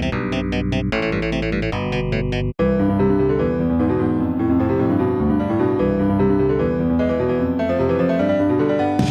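Electronic keyboard music with several piano-like parts layered at once. It breaks off abruptly about two and a half seconds in, and a new passage of overlapping held notes follows.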